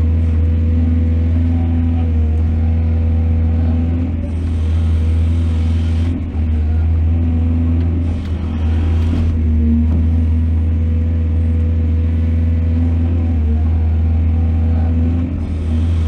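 Heavy diesel engine of an excavator running steadily under load with a deep, even rumble and a steady hum over it. A few brief swells of higher-pitched noise rise over the rumble.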